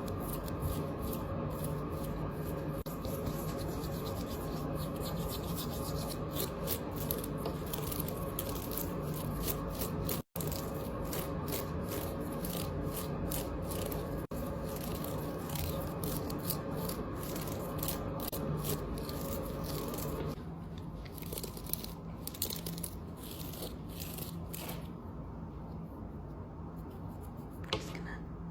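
Close-up rubbing and scraping full of small rapid clicks, typical of bangles and rings knocking and sliding against one another. It drops out for an instant about 10 seconds in and grows thinner and sparser after about 20 seconds.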